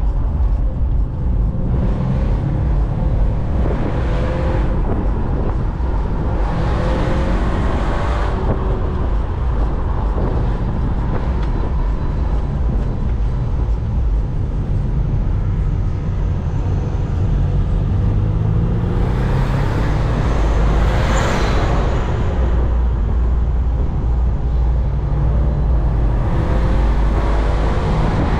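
BMW Z4 engine running while the car is driven, its pitch rising and falling again and again as it accelerates and eases off, over a heavy steady rumble of road and wind noise.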